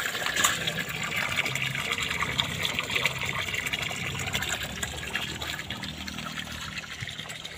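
A steady stream of water gushing from the white PVC outlet pipe of a bored well and splashing onto the ground, easing slightly near the end.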